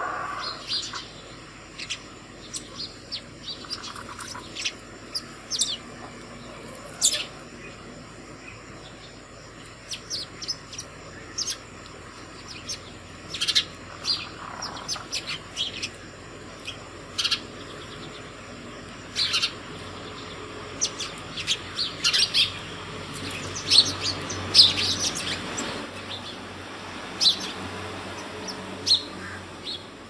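House sparrows chirping: many short, sharp chirps, scattered at first and coming thicker in the second half.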